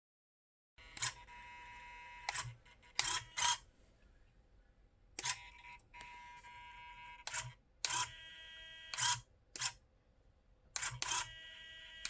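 About eleven short, sharp clicking bursts at irregular intervals, over a faint steady electrical whine.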